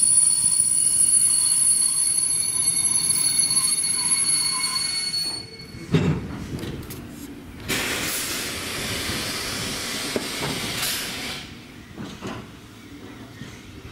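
A steam-hauled train's ex-Reichsbahn coaches squeal with steady high tones as they brake into a station. The squeal cuts off about five seconds in, and a clunk follows as the train stops. About two seconds later a loud hiss of escaping air or steam runs for about four seconds.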